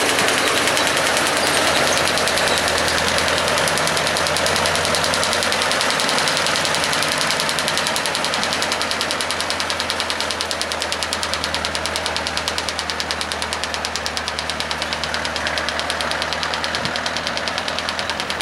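Diesel engine of a small narrow-gauge shunting locotractor running with a fast, even knock as the machine pulls away along the track, growing quieter as it goes.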